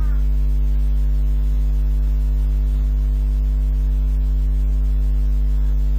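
Steady electrical mains hum: a loud, unchanging low drone with a stack of evenly spaced higher overtones.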